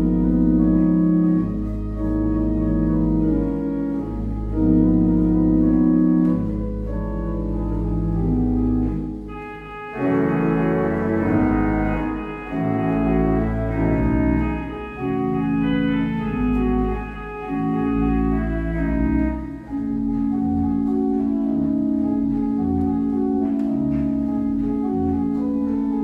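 Church pipe organ playing: sustained full chords over a deep pedal bass. About ten seconds in the bass drops back and quicker moving notes take over, settling into a long held chord about twenty seconds in.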